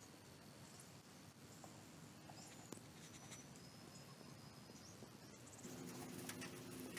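Near silence with faint, thin, high whistles from birds and scattered small clicks. Near the end a low steady hum joins in.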